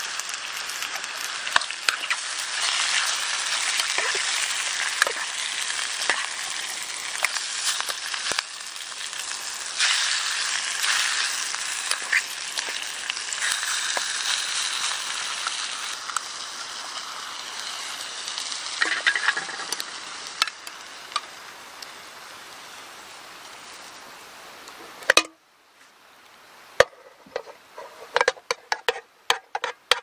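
Meat and sliced onions sizzling as they fry in a mess-tin pan over an open fire, with light clicks of a utensil moving them about. The sizzle cuts off suddenly about 25 seconds in, and a quick run of clinks follows near the end.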